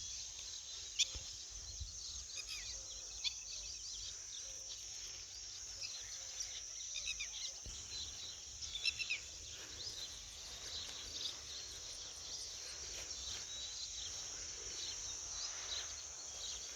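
Outdoor ambience: a steady high insect drone, with scattered short bird chirps and a few clicks over it.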